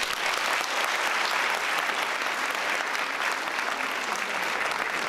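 A large audience applauding, steady clapping from many hands.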